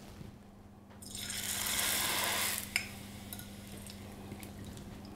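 Rice crisp lowered into hot frying oil: a burst of sizzling starts about a second in and after about a second and a half settles to a quieter, steady frying hiss. A single click comes just after the burst, and a steady low hum runs underneath.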